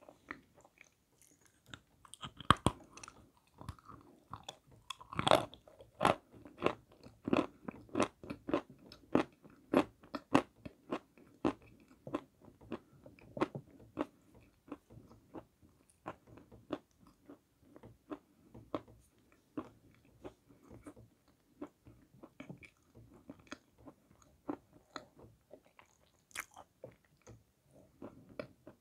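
Close-up crunching and chewing of a hard lump of edible clay, a quick run of crisp crunches that is densest in the first half and thins out later.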